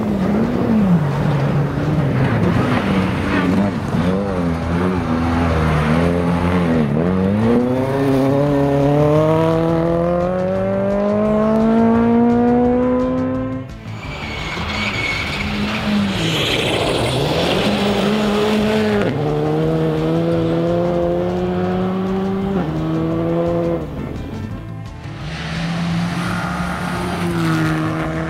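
Rally cars at full throttle on a gravel special stage, each engine rising steadily in pitch through the gears with short drops at the shifts, over the hiss of tyres on loose gravel. The sound breaks off abruptly about halfway through and again near the end, as one pass gives way to the next.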